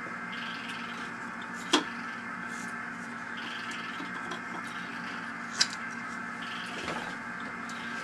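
SoundTraxx Tsunami steam sound decoder in an N scale Union Pacific FEF 4-8-4 model, playing a standing steam locomotive through its small speaker. A steady hiss lies over a low hum, a brief higher hiss comes back about every three seconds, and two sharp clicks fall about four seconds apart.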